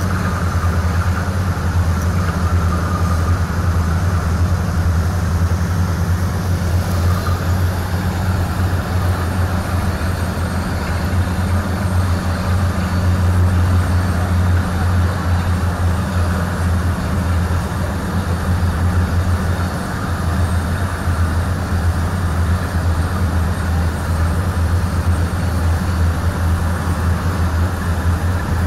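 Drilling rigs and their heavy engines running with a steady, unbroken low drone.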